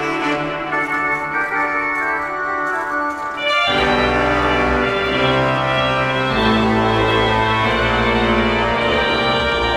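Pipe organ built by François-Henri Clicquot in 1783 playing sustained chords. About three and a half seconds in, deep bass notes come in and the sound grows fuller.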